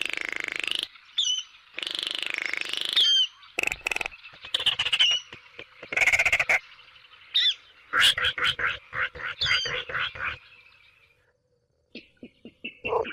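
Recorded Baillon's crake calls played as a hunting lure: bursts of dry, rapid rattling, some long and some short, mixed with quick chirping notes that sweep up and down, fading out about eleven seconds in.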